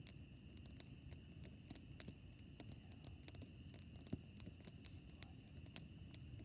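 Faint crackling of a burning campfire: irregular small snaps and pops over a low rumble, with sharper pops about four and six seconds in.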